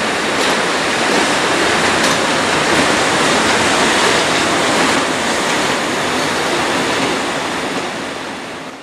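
PKP Cargo ET41 twin-section electric locomotive running light past at close range: a loud, steady rush of rolling noise from its wheels on the rails, with a couple of faint clicks, fading near the end as it moves away.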